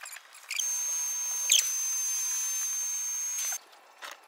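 Electric air pump inflating an inflatable floating platform: it runs for about three seconds with a steady hiss and a high, steady whine, starting and cutting off abruptly.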